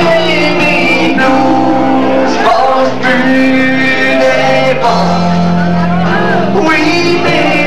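Music: a song with a singing voice over instruments, with long held bass notes.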